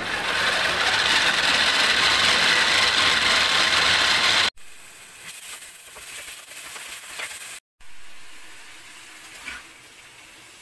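An electric mini chopper's motor runs loud and steady for about four and a half seconds, chopping onions, then stops abruptly. After that comes a much quieter stretch with a few light clicks and scrapes of a metal spatula stirring masala and vegetables in a steel kadai.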